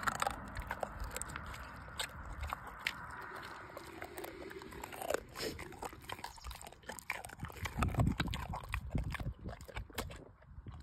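An American Staffordshire terrier chewing a mouthful of raw meat with its mouth open: an uneven run of short wet smacks and clicks, heaviest about eight seconds in.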